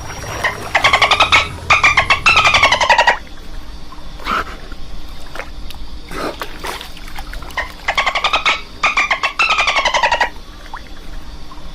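Dolphin chattering: two runs of rapid pulsed squawks, each in three pieces with the pitch falling, about a second in and again near eight seconds in, with scattered clicks between.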